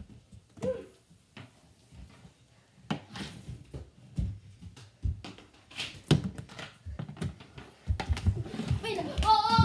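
Irregular clacks and knocks of plastic mini-hockey sticks and a ball striking each other and a hardwood floor. A child's voice rises near the end.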